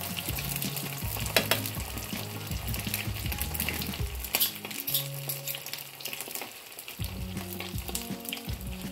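Nems (spring rolls) deep-frying in hot sunflower oil during their first fry: a dense crackling sizzle with a few sharp pops.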